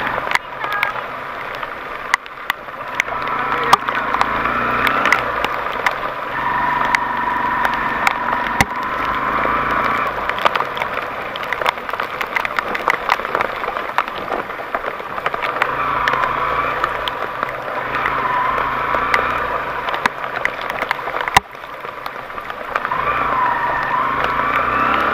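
An off-road vehicle's engine working hard, its note swelling and easing in several surges. Many sharp clicks and cracks run through it.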